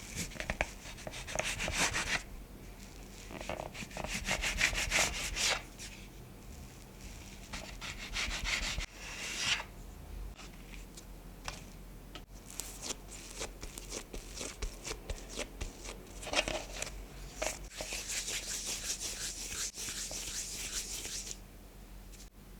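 Rubbing and scraping in several bursts of quick strokes, as bread dough is worked and shaped by hand on a work surface.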